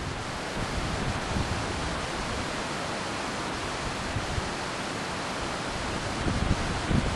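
Wind blowing across the camera microphone: a steady rushing hiss with uneven low buffeting rumbles.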